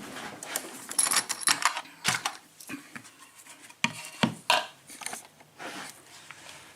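Lockpicking board and tools being handled and set out on a work surface: irregular clicks, knocks and rattles, busiest about a second in and again about four seconds in.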